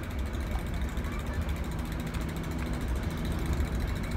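Class 08 diesel shunter's English Electric six-cylinder engine running steadily as the locomotive pulls away hauling a coach, with a deep rumble.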